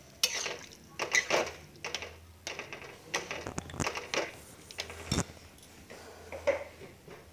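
A spatula stirring watery potato-tomato curry in a metal kadhai, the gravy just thinned with a glass of water: irregular scrapes and clinks against the pan with liquid sloshing, and a sharper knock about five seconds in.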